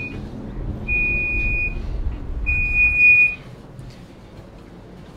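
Electronic warning beeper aboard a Sapsan high-speed train, sounding a single high tone in repeated beeps just under a second long, about every second and a half. A low rumble runs beneath and stops a little after the last beep.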